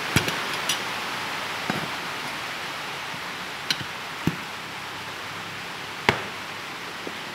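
Scattered sharp clicks and knocks of metal tire levers and a spoked motorcycle wheel being handled on a concrete floor, the loudest about six seconds in, over a steady hiss of rain.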